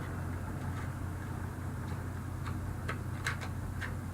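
Faint clicks and light handling noise from items and packing material in a cardboard subscription box, over a steady low hum. The clicks are a few short, separate ones in the second half.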